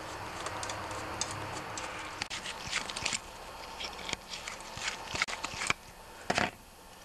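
Irregular small metallic clicks and scrapes of a flat screwdriver working the jet out of a Briggs & Stratton carburetor body, with a couple of sharper knocks near the end.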